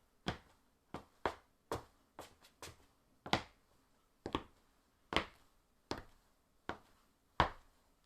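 Footsteps on concrete: sharp, hard-soled steps at a walking pace, roughly one every three-quarters of a second, with a few steps landing in quick pairs.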